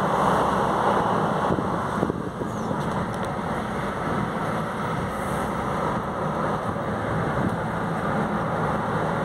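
Road noise heard inside a moving car: a steady rumble of engine and tyres with some wind, a little louder for the first two seconds and then dropping slightly.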